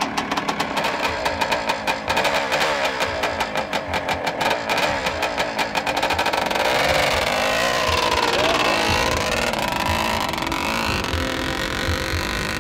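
A 1971 Suzuki TM400 Cyclone's single-cylinder two-stroke engine is idling with a rapid popping beat. About six seconds in it revs harder and the pitch rises and falls repeatedly as the bike pulls away.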